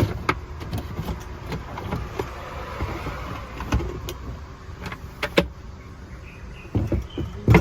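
Parts of a folding overland kitchen bed platform being folded and clipped together for packing: scattered clicks and knocks, a scraping slide a couple of seconds in, and two heavier thumps near the end.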